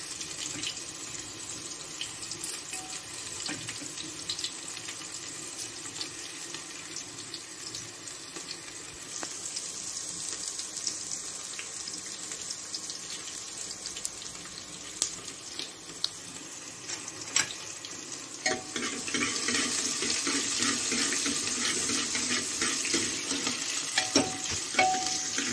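Tap water running and splashing into a kitchen sink, steady, growing louder about two thirds of the way through, with a few light clinks of utensils.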